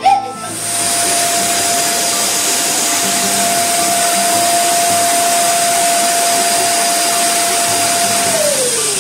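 Electric balloon pump blowing air into a large latex balloon: a steady rushing hiss with a constant whine, starting about half a second in. The whine drops in pitch near the end as the pump winds down.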